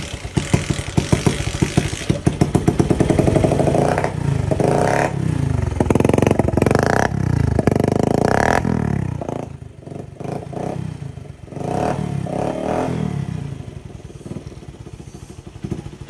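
Bajaj Platina's single-cylinder four-stroke engine running just after being started, revved up several times and dropping back to a rough idle in between. It is misfiring a little, which the owner puts down to water in the fuel tank.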